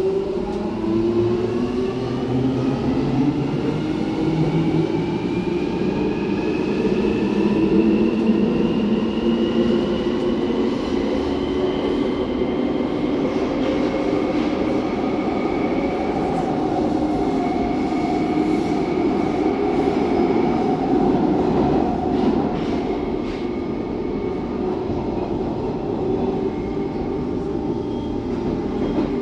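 London Underground 1996 stock train with 3-phase GTO inverter traction drive accelerating. The whine of its motors climbs in pitch as several rising tones for about the first twelve seconds, then levels off into a steady whine over the rumble of the wheels as the train runs at speed.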